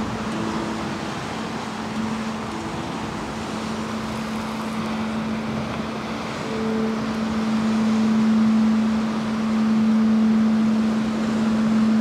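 A steady low droning tone from an instrument, swelling louder a little past halfway, with a few brief higher notes above it, over the hiss of wind.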